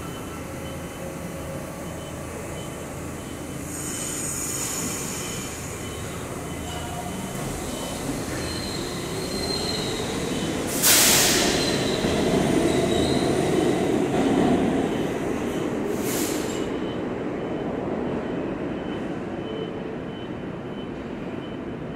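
New York City subway trains running through an underground station: a steady rumble of cars on the rails, with high-pitched wheel squeal about four seconds in. About 11 seconds in comes a short, loud hiss that peaks sharply, with a second hiss about 16 seconds in, while the rumble swells for a few seconds.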